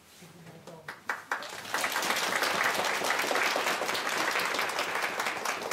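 Audience applauding: a few scattered claps about a second in, then dense, steady clapping from many hands.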